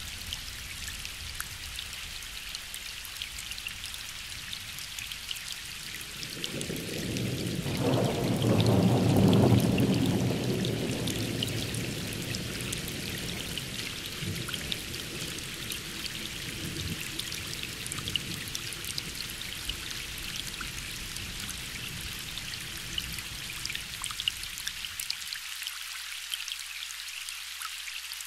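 Steady rain with fine pattering drops, and a roll of distant thunder. The rumble swells about six seconds in, peaks a few seconds later, then dies away slowly over the next several seconds.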